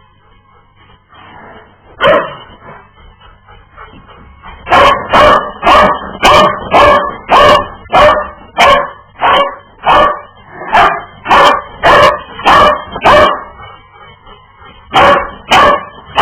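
Dog barking: a single bark, then a run of about fifteen barks at roughly two a second, then a couple more near the end.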